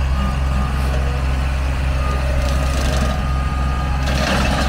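Kubota L3800HST compact tractor's three-cylinder diesel engine running steadily, with a thin high whine that comes and goes. About four seconds in there is a short burst of crackling as the loader-mounted Lane Shark cutter reaches the brush.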